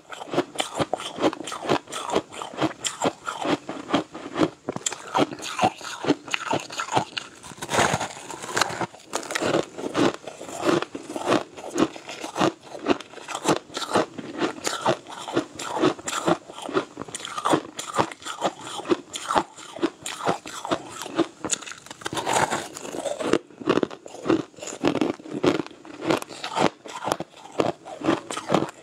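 Chunks of green-tinted frozen crushed ice being bitten and chewed close to the microphone: a quick, steady run of crisp crunches throughout.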